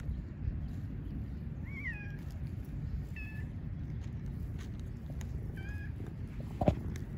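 A cat meowing three times, short high calls a second or two apart, over a steady low rumble. A single sharp knock comes about half a second before the end and is the loudest sound.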